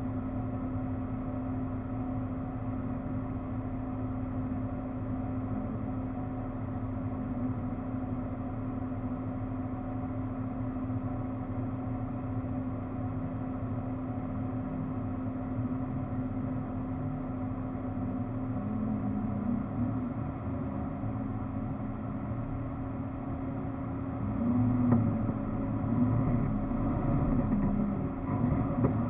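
4x4's engine running steadily while driving off-road, with a constant hum. About 24 seconds in it gets louder and wavers in pitch as the engine works harder.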